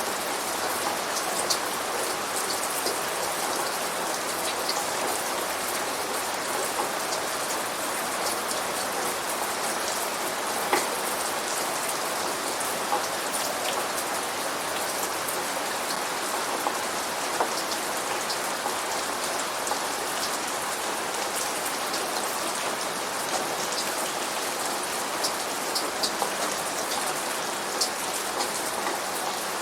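Steady rain falling, with many individual drops pattering close by as sharp little ticks over an even hiss; no thunder.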